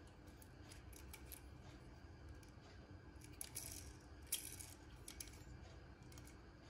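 Faint clicks and taps of a small die-cast metal toy car being handled and turned over in the fingers, with one sharper click a little past four seconds in, over low room hum.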